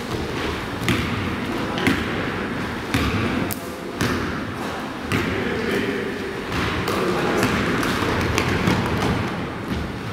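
Basketball game on a hardwood gym floor: irregular thuds of the ball bouncing and players' running feet, echoing in the large hall.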